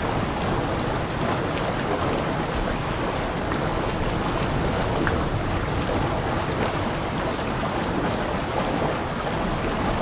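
Steady heavy rain falling on surfaces, a dense even hiss with scattered individual drop ticks.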